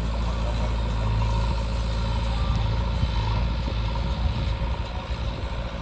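Farmtrac 45 tractor's three-cylinder diesel engine running steadily under load as it pulls a loaded trolley over soft dirt. The low engine note grows uneven near the end.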